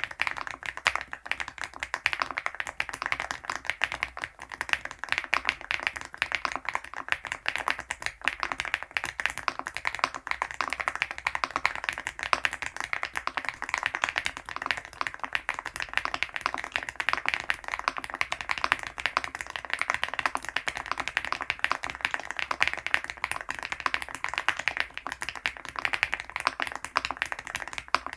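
Fast, continuous typing on an MCHOSE GX87 aluminium tenkeyless mechanical keyboard fitted with 80Retros x HMX Game 1989 switches: a dense, even stream of key clacks.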